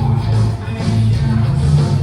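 Rock music with guitar and a strong bass line.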